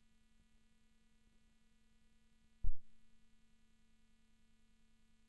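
Faint steady electrical hum over near silence from a blank stretch of video tape. About two and a half seconds in, one sudden low thump breaks in and dies away within about half a second.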